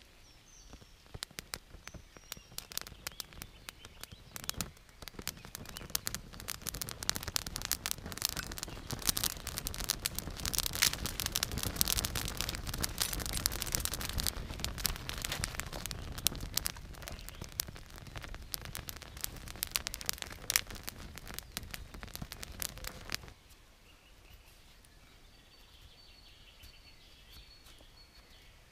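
Dry grass tinder catching fire and crackling on a log platform: a dense run of snaps and pops that builds up, fades, then stops abruptly about 23 seconds in. Faint bird chirps follow.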